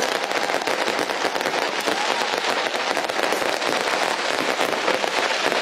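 Many fireworks going off at once: dense, steady crackling with countless overlapping pops and no single big bang standing out.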